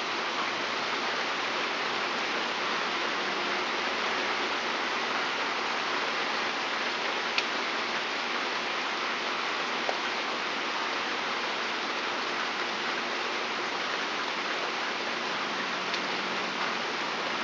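Steady pouring rain falling on a wooden deck and garden, an even hiss with a couple of faint ticks around the middle.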